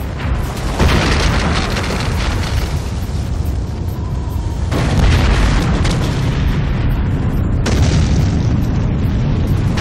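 Film sound effects of volcanic eruptions: heavy booms over a continuous deep rumble, with fresh blasts breaking in about one, five and eight seconds in.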